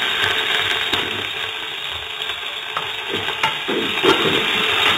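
Hot ghee sizzling and spluttering in a kadai with mustard, cumin and fenugreek seeds and freshly added curry leaves, a steady hiss that eases a little partway through. From about three seconds in, a wooden spatula scrapes and stirs around the pan.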